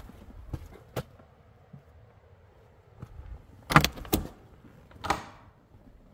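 Metal latch on a wooden door: two sharp clicks a little before the four-second mark, then a short scraping sound about a second later as the door is pushed open. A few faint clicks come earlier.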